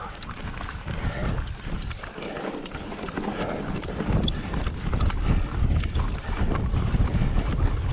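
Wind buffeting the action camera's microphone in a fluctuating low rumble, with many small clicks and crunches of the mountain bike's 29+ tyres over loose rock on a steep climb.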